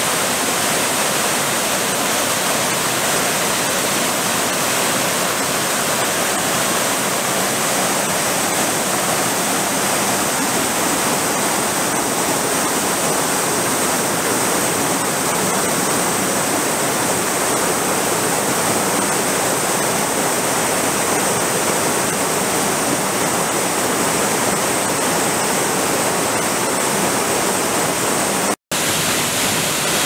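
Waterfall and cascading mountain stream: a steady, loud rush of falling and tumbling water over rocks, broken by a momentary dropout near the end.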